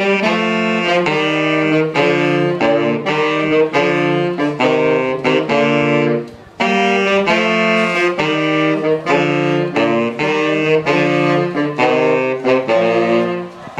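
Two saxophones playing a jazz tune together in a run of quick, changing notes, with a short pause for breath a little past six seconds in.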